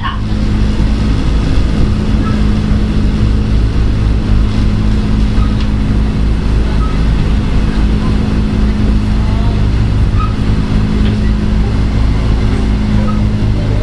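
Running sound of a former Tokyu 8000 series electric multiple unit heard from on board: a steady low rumble with a constant hum, with no change in pitch.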